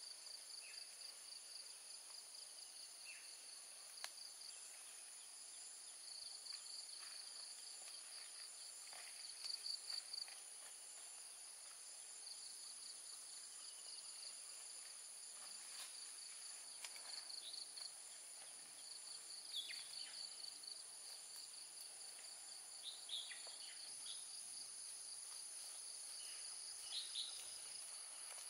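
Insects trilling steadily in the vegetation: a constant high whine with a pulsing, slightly lower trill over it, and brief chirps now and then.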